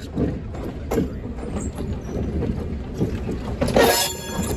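A train rolling slowly past at close range, with passenger cars and a diesel switcher locomotive: a low uneven rumble with scattered clicks and creaks from the wheels and running gear. A brief louder hiss comes near the end.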